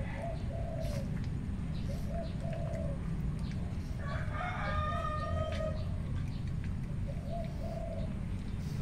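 Doves cooing in short low phrases, repeated every second or two, with a rooster crowing once about four seconds in. A steady low rumble runs underneath.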